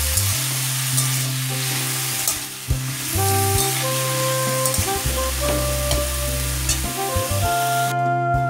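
Diced potatoes sizzling as they fry in hot oil in a wok, stirred and tossed, with a few sharp scrapes and clicks. The sizzle cuts off suddenly near the end.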